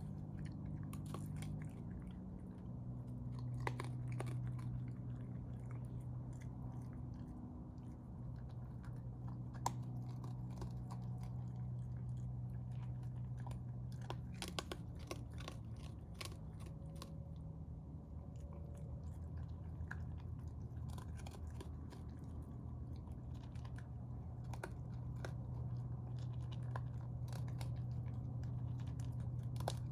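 Raccoon chewing and crunching food, a run of small irregular clicks, over a steady low hum.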